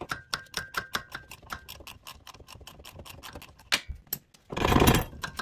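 Ratcheting gear wrench clicking in quick runs, about seven clicks a second, as a socket on it is swung to loosen the steering rack's input shaft bolt. A loud, half-second rush of noise comes about four and a half seconds in.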